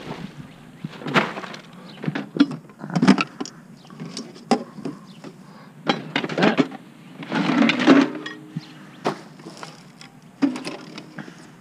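Handling curbside trash: slow-cooker parts knocking and clunking as they are lifted out of a cardboard box and set down, with rustling of plastic bags and cardboard, loudest about seven to eight seconds in.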